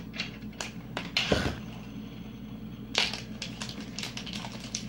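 A plastic tub of whipped topping being opened and handled: scattered crackles and clicks of the plastic lid and seal. There is a louder crunch with a low thump about a second and a half in and another sharp crunch about three seconds in.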